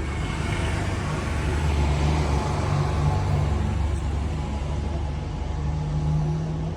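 School bus passing with a low engine hum and road noise. It swells to its loudest about two to three seconds in, then eases off.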